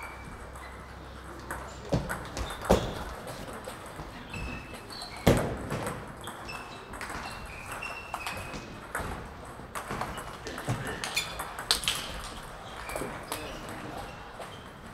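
Table tennis rally: the ball clicking off the paddles and bouncing with short, high pings on the table in quick, irregular exchanges. The loudest hits come about two seconds in, again about five seconds in and near twelve seconds. More balls click faintly from other tables in the large hall.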